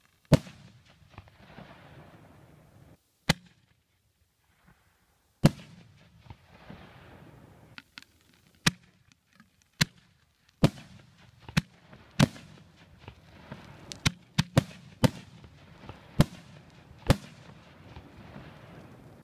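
Aerial fireworks bursting overhead: a series of sharp bangs, a few seconds apart at first and then coming more quickly in the second half, with a hiss lingering between them.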